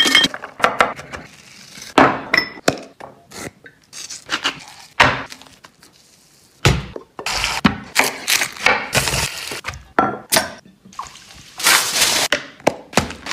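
A string of close-up food-preparation sounds: sharp clinks and knocks of metal and glassware, then handling and rustling noises. Near the end aluminium foil crinkles.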